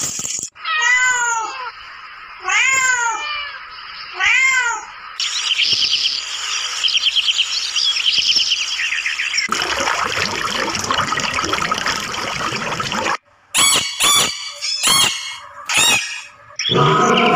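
A domestic cat meows three times, each call rising and then falling. Rapid high-pitched chirping and a few short, sharp squeaks follow. Near the end, a lion begins a loud, deep roar.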